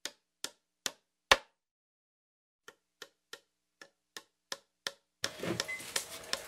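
A run of eleven sharp ticks, mostly about 0.4 s apart, with dead silence between them and a pause of over a second after the fourth, loudest tick. About five seconds in, the sound of a room with light knocks comes in.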